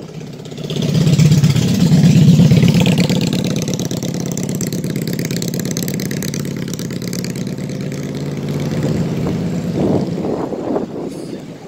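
A motor vehicle's engine running close by, swelling loud about a second in, holding steady for several seconds and dropping away near the end.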